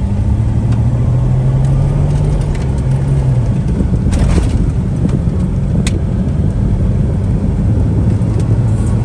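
Car engine and road noise heard from inside the cabin while driving: a steady low drone, with a brief rushing swell about four seconds in and a sharp click near six seconds.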